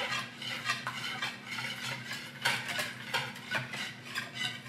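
Wire whisk beating a bowl of liquid wet ingredients (oat milk, eggs, oil, vanilla) in a mixing bowl: quick, irregular strokes of wire clicking against the bowl and sloshing through the liquid.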